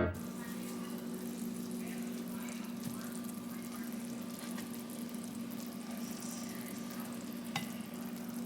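Steady low hum with a soft hiss underneath, and a single faint click about seven and a half seconds in.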